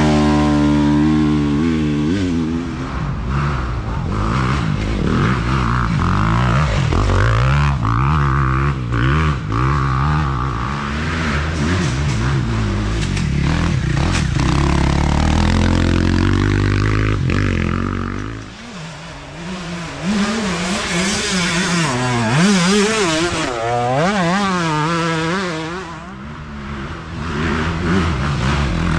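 Dirt bike engines revving hard, pitch rising and falling with constant throttle changes as bikes pass one after another, briefly dropping away about two-thirds of the way through and again near the end.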